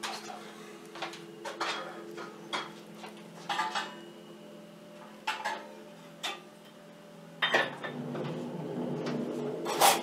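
Skid-steer loader clearing snow, its engine droning steadily and running harder about seven and a half seconds in, with irregular scraping strokes on ice and packed snow.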